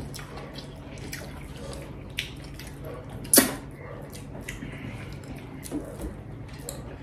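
Wet eating sounds of people eating rice with their hands from brass plates: scattered small smacks and clicks of chewing, finger-licking and rice being mixed by hand, with one louder smack about three and a half seconds in.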